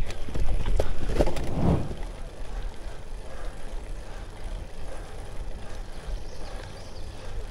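Gravel bike clattering and knocking over a rough dirt trail, with wind rumbling on the microphone; after about two seconds it gives way to a quieter steady rush of tyres and wind on smooth pavement.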